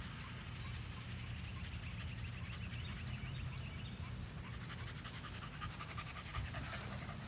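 Dog panting quickly, getting louder as it comes up close, over a steady low rumble.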